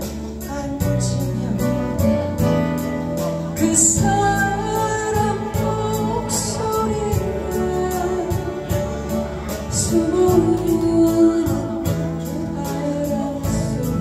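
A woman singing a Korean song into a microphone, accompanying herself on a strummed acoustic guitar.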